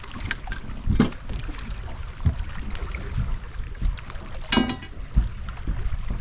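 Steady low rumble aboard a fishing boat, with a sharp knock about a second in and another, briefly ringing, about four and a half seconds in.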